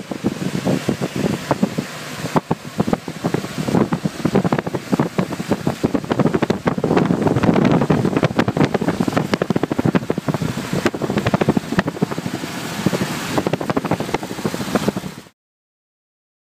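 Strong wind buffeting a phone's microphone: a rough, gusting rumble full of crackles. It cuts off abruptly about a second before the end into dead silence.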